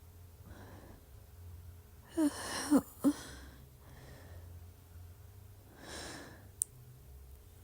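Three quick, short throat croaks over a breathy exhale about two seconds in, the gulping croak of trapped air that comes with R-CPD, the inability to burp. A softer breath follows near the end.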